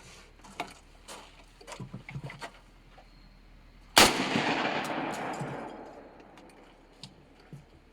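A single 12-gauge semi-automatic shotgun shot about four seconds in, its report echoing and dying away over about two seconds. Faint clicks come before it.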